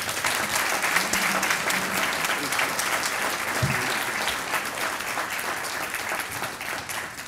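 Audience applauding: many hands clapping, starting suddenly and tapering off near the end.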